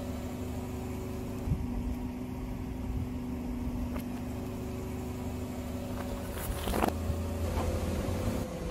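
Car engine idling with a steady hum, a few light clicks and one sharp crack about seven seconds in; near the end the hum slides down in pitch.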